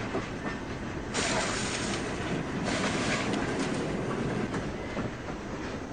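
A train running past, its wheels clattering on the rails in a steady rumble that grows louder and hissier about a second in.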